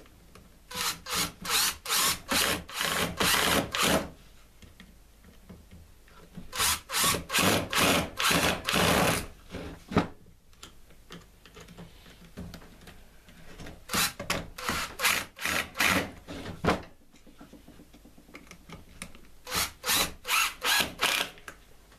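Cordless drill-driver driving screws into a mower motor's end housing, in four spells of a few seconds each, every spell a string of short pulsing bursts.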